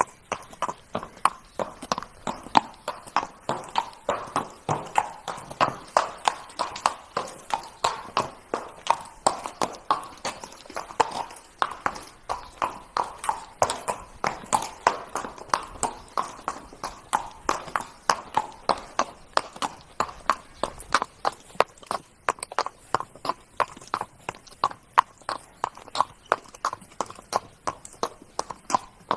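Horse hooves trotting: a steady rhythm of sharp hoofbeats, two or three strikes a second.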